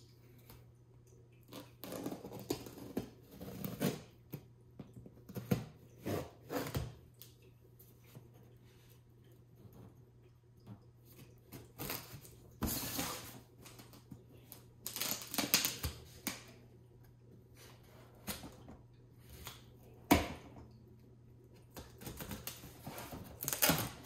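Cardboard packaging being opened and handled: irregular rustles and scrapes of box flaps and an inner box being pulled out, with a few sharp knocks, the sharpest about twenty seconds in.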